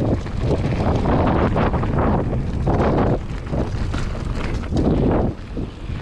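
Wind buffeting the action camera's microphone over the rumble and rattle of a full-suspension Giant Reign mountain bike rolling down rough, muddy rock, in irregular surges, easing briefly near the end.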